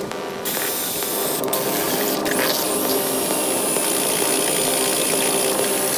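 Porter-Cable cordless drill spinning a paddle mixer through wet plaster of Paris in a plastic bucket. It starts about half a second in and runs at a steady speed, its whine dipping briefly about two and a half seconds in, then holding until the end.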